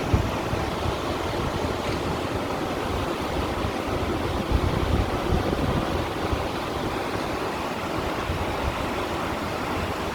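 Sea water washing and lapping against shoreline stones, a steady wash of surf with a low, uneven rumble beneath it.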